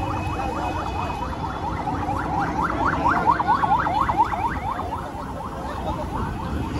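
An electronic warbling alarm, a rapid up-and-down sweeping tone repeating about six times a second and loudest in the middle, over the steady noise of street traffic.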